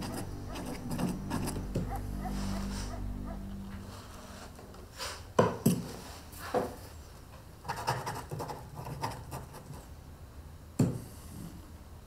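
Pen scratching on paper, with a few sharp clacks on the wooden desk. Soft low music fades out in the first few seconds.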